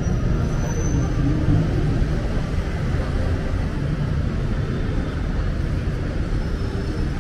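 Steady low rumble of city street noise, with no single event standing out.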